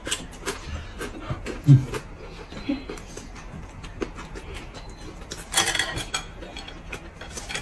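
Close-miked eating sounds: chewing and slurping hot pot food off bamboo skewers, with skewers and chopsticks clicking against bowls and plates. A dull knock comes a little under two seconds in, and a louder noisy burst comes around five and a half seconds in.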